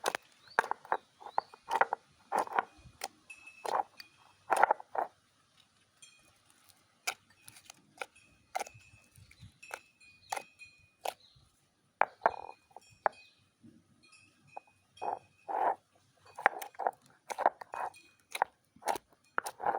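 Slime being squished and poked by hand: an irregular run of short sticky clicks and small pops.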